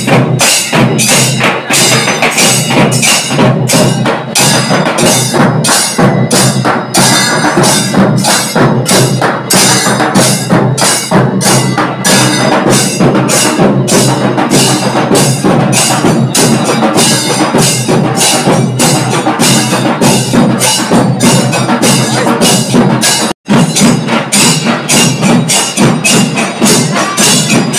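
Loud temple percussion music, dominated by sharp clacking drum strikes in a fast, even beat of about four a second. The sound cuts out for a moment about 23 seconds in.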